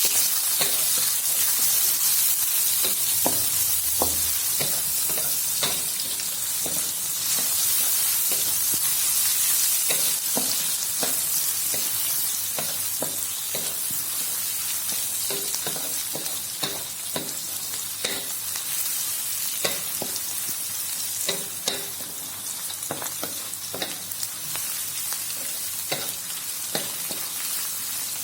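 Chopped chilies, shallots, garlic, leek and curry leaves sizzling in hot oil in a pan while being stir-fried, a utensil tapping and scraping the pan several times a second. The sizzle grows gradually quieter.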